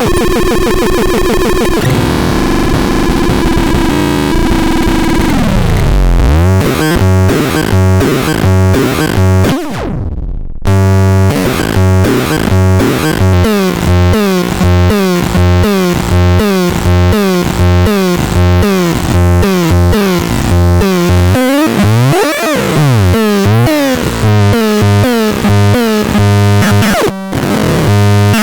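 Electronic synthesizer sounds: a held, wavering tone that glides downward, then fast repeating pulses over a steady bass, with rising and falling pitch sweeps. The sound cuts out briefly about ten seconds in.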